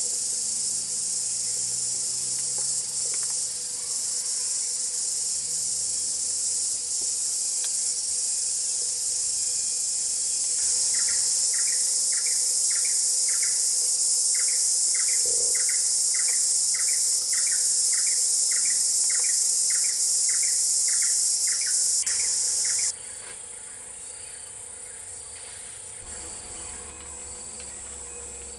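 A steady, loud, high-pitched shrill of forest insects, with a short chirp repeated about twice a second in the middle stretch. The shrill drops abruptly to a quieter level about 23 seconds in.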